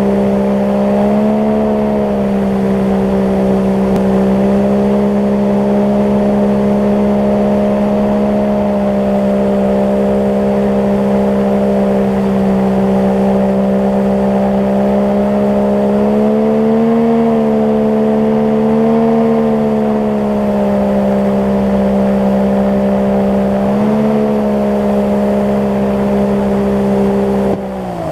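Outboard jet motor on an aluminum jon boat running steadily at high speed, its engine tone rising slightly a few times as the throttle shifts. Near the end the revs fall sharply.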